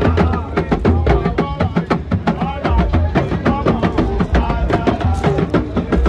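Music with fast, busy percussion: dense, evenly repeating drum strikes with a steady low beat, and a voice singing over it.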